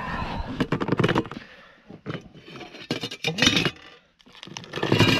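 Metal lid of a stainless steel Muffpot exhaust cooker clinking open, then the aluminium-foil packet of food inside crinkling as it is handled, in several short runs of clicks and crackling.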